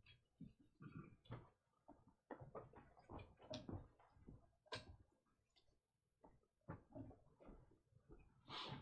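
Near silence: room tone with faint, scattered soft knocks and shuffles.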